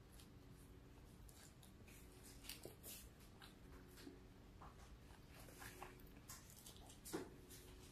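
Faint chewing and wet mouth clicks from eating a cheeseburger: scattered short smacks, with a sharper click about seven seconds in, over a low steady hum.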